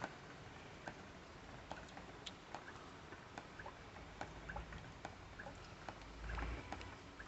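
Water from a roof leak dripping steadily, each drop a short sharp tick, two or three a second at an uneven pace. A brief low rumble about six seconds in.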